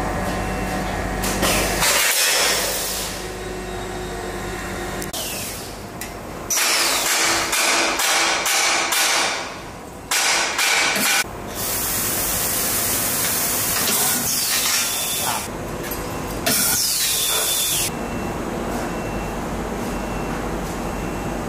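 Metal tube laser cutting machine running: mechanical hum and motor noise in short segments that switch abruptly, some with loud hissing and a few knocks.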